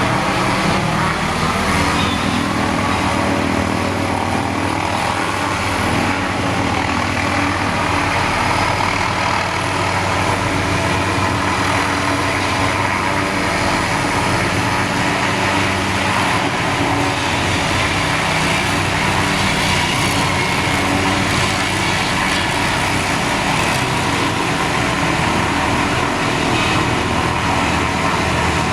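Hughes 500D helicopter running steadily, its rotor and turbine engine giving a loud, continuous drone.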